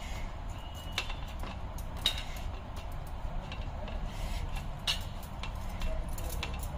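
A few light metallic clinks of brass puja vessels being handled, one ringing on briefly, over a steady low background rumble.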